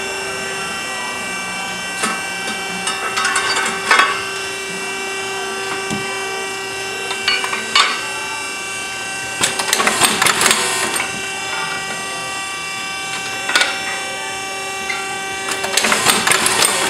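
Automatic brake-shoe riveting machine running with a steady hum, with scattered metal knocks as a brake shoe is loaded onto its fixture. Bursts of rapid clicking and rattling come from the machine about ten seconds in and again near the end.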